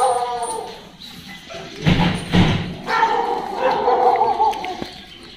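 Dogs whining and barking, with a loud burst of sound about two seconds in.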